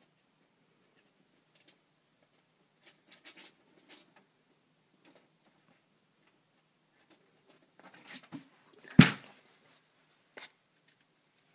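Faint scratching and tapping, then a sharp knock about nine seconds in and a smaller one a second and a half later, as a hairless cat scrambles from the top of a closet mirror onto a wooden-framed laundry hamper.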